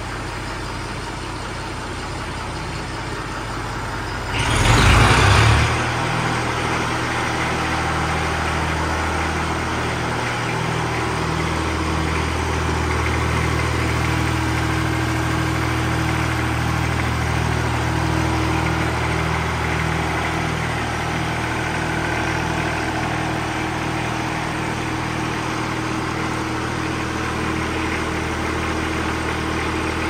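Old Massey Ferguson tractor engine idling steadily, running again after a no-start repair. About four seconds in there is a loud rush of noise lasting a second or so, after which the engine sounds louder.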